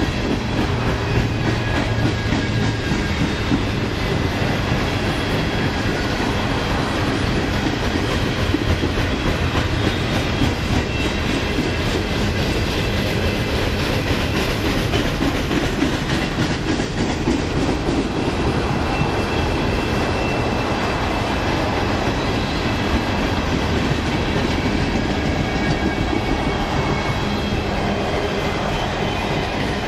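Coal hopper cars of a freight train rolling past at speed: a steady rumble and clatter of steel wheels on the rails, with rapid fine clicking and no let-up.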